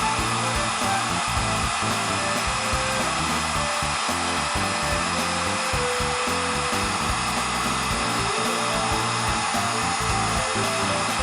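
Background music with a steady rushing noise under it.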